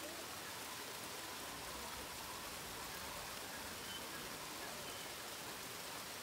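Faint steady hiss, with no singing or instruments.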